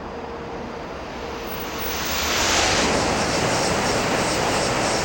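N700-series Shinkansen train passing through the station at high speed: the rush of noise swells over about a second, starting about a second and a half in, then holds loud and steady with a faint even pulsing as the cars go by.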